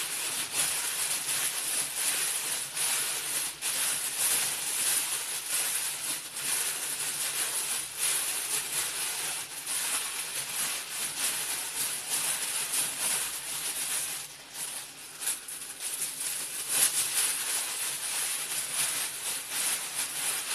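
Thin plastic bag crinkling and rustling steadily as diced potatoes and their oil marinade are kneaded inside it by hand.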